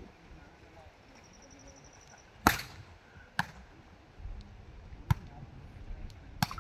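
A volleyball being struck by players' hands and arms during a rally: four sharp slaps, the first the loudest, spaced one to two seconds apart.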